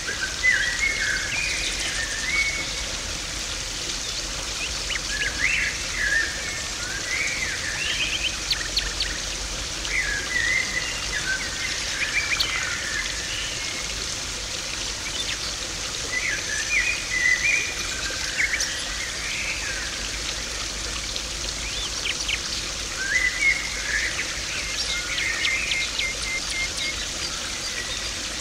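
Steady rushing and splashing of water in a garden pond, with birds chirping and twittering in short bursts every few seconds over it.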